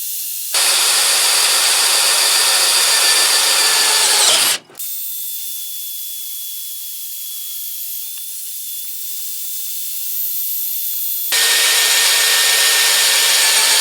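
Brushless Makita cordless drill boring a 5/16 inch bit through 1/8 inch steel angle iron: two loud stretches of drilling, one starting about half a second in and the other near the end, with a quieter steady high-pitched motor whine between them after a sudden drop about four and a half seconds in.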